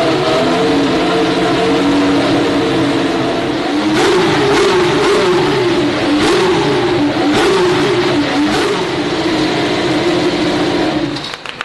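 Formula 1 car's turbocharged V6 hybrid engine running at a fast, steady idle during its first fire-up of the season, with several short blips of the throttle in the middle, then cut off suddenly near the end.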